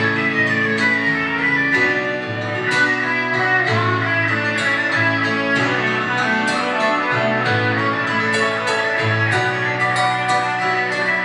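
Guitar and piano playing an instrumental passage together, with a run of plucked and struck notes over sustained low notes.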